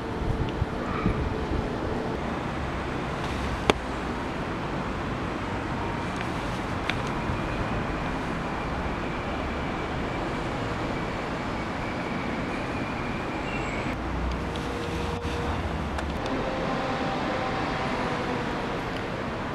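Steady background rumble of distant city traffic, with one sharp click about four seconds in.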